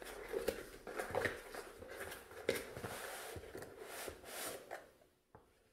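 Tall cardboard product box being opened by hand: the top flap pulled up, with rustling, scraping and small knocks of card. It stops abruptly about five seconds in.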